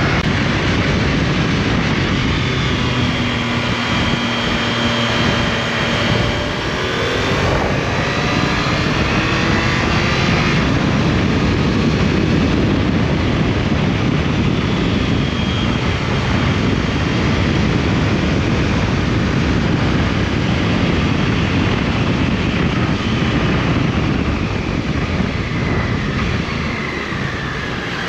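Triumph Tiger Sport 660 motorcycle ridden at speed on a twisty road: heavy wind rush over the onboard camera, with the engine note rising and falling through the bends.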